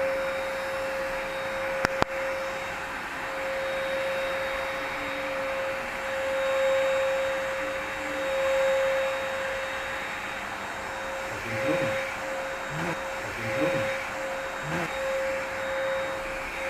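Dibea C17 cordless stick vacuum cleaner running steadily: a high motor whine over a rushing airflow. Two sharp clicks about two seconds in, and a few brief low wavering sounds between about eleven and fifteen seconds.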